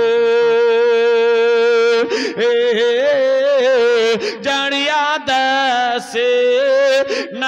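A man singing a Bengali Islamic devotional song (gojol), holding one long note for about two seconds and then singing a wavering, ornamented melody, over a steady low drone.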